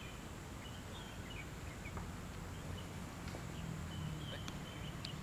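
Open-air background: scattered short, high bird chirps over a low steady rumble.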